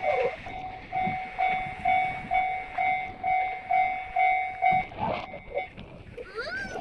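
Japanese railway level-crossing warning sounder giving its 'kan-kan' alarm: a ringing electronic tone repeating a little over twice a second, which stops about five seconds in.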